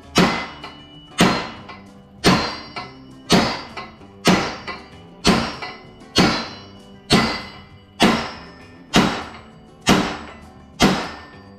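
Hammer blows on a brass drift driving Mallory heavy-metal slugs into drilled holes in a crankshaft counterweight for balancing. There is about one hard blow a second, each with a sharp metallic ring, and a lighter tap between some of them.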